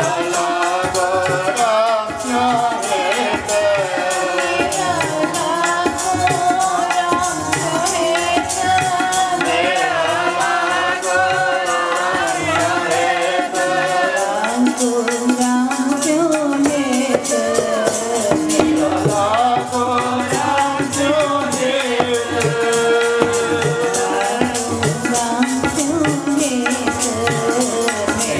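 Sikh kirtan: two harmoniums and a tabla accompanying several voices singing a devotional chant, with a fast, even tabla rhythm under the sustained reeds and voices.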